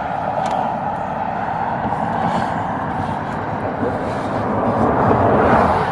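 Road traffic passing close by: a steady rush of tyre and engine noise that swells as a vehicle goes by near the end.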